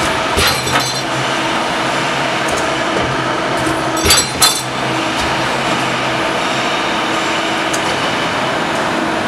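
ZYMT 6 mm × 3200 mm hydraulic swing beam shear running with a steady hum while it cuts steel plate. There are sharp, ringing metallic clanks in two pairs, about half a second in and about four seconds in.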